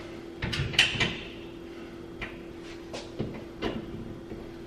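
Scattered clicks and knocks from handling the metal breaker panel cover and its screws: a quick cluster in the first second, a single one about two seconds in, and a pair past three seconds, over a steady low hum.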